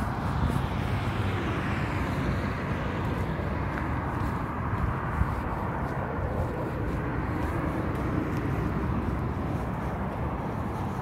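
Steady outdoor background noise, mostly a low rumble, with a few faint clicks.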